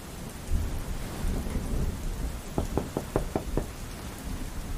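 Steady heavy rain with a roll of thunder that rumbles up about half a second in. A little past the middle come six quick, even knocks on a door.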